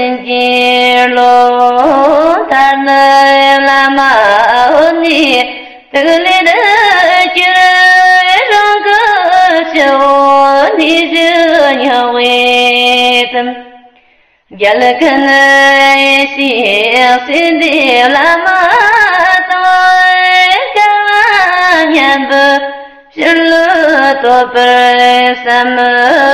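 A voice singing a Tibetan prayer verse to a slow melody, with long held and gliding notes sung phrase by phrase; a short break about 6 seconds in and a longer pause about 14 seconds in.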